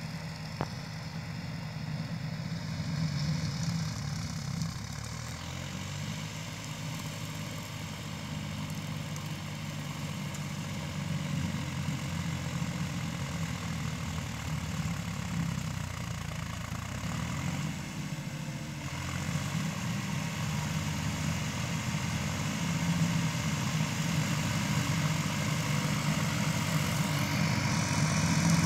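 Massey Ferguson 266 Gold 4x4 diesel tractor running steadily as it works a shredder through brush, the engine note growing louder as it comes closer.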